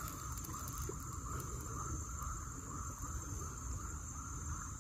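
Insects chirring in the open, crickets among them: a steady high-pitched trill with a lower, rapidly pulsing call beneath it, over a faint low rumble.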